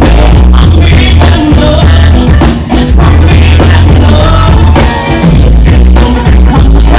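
Loud live stage music from a band with a drum kit, heavy in the bass, with a singing voice over it.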